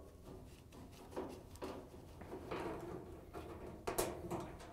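Phillips screwdriver backing screws out of a dryer's sheet-metal cabinet: faint, scattered scraping and rasping, with one sharp click just before the end.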